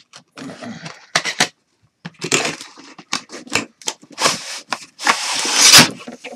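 Cardboard packaging being handled as the box is opened: a run of rustles, scrapes and knocks, loudest in a long scraping slide about five seconds in as the inner carton comes out.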